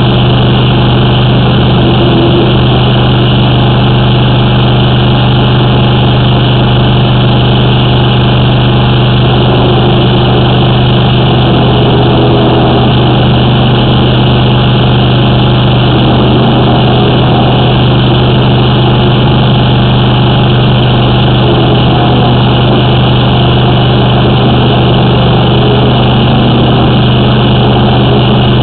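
High-pressure drain jetter engine and pump running steadily: a constant low hum with no change in speed.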